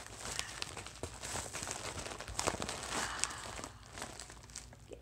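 Padded paper mailer being ripped open and crinkled by hand: irregular tearing and crackling with many small snaps.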